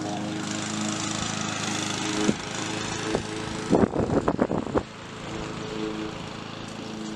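Lawn mower engine running steadily, with a quick burst of loud thumps about four seconds in.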